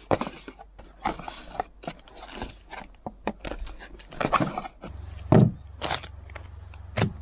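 Plastic bags and bubble wrap crinkling and rustling, with scrapes and light knocks of cardboard, as a hand rummages through a box of packed parts. A low steady hum comes in about five seconds in.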